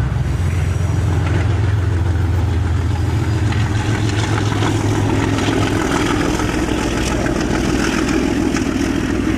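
A loud, steady low drone like an engine running, its tone shifting a little higher in the second half, cutting off suddenly at the end.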